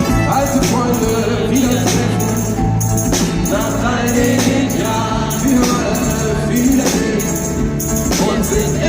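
Live pop-rock band music played through an arena PA, with a steady bass line, a driving drum beat and singing voices. The band comes in at full level right at the start, replacing a single held keyboard-like tone.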